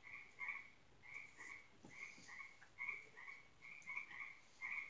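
Faint, short chirping calls repeated two or three times a second, a small animal calling steadily.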